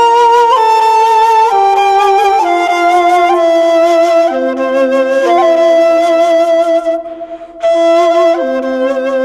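Background flute music: a slow melody of held, wavering notes that change pitch about once a second, with a brief break about seven seconds in.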